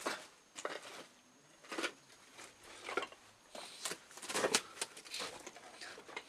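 Footsteps crunching and scuffing over debris in an irregular series of steps, with a denser cluster of crunches about four and a half seconds in.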